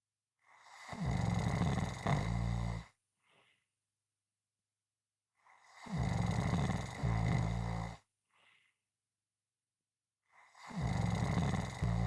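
Loud snoring, three long rasping snores about five seconds apart, each followed by a short faint breath; the third is still going at the end.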